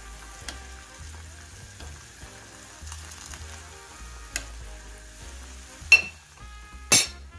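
A pot of noodle soup at a boil, bubbling, while a metal spoon stirs it. The spoon knocks against the side of the metal pot a few times, and the sharpest knocks come near the end.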